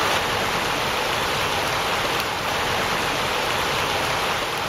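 Small brook babbling over rocks: a steady rush of running water.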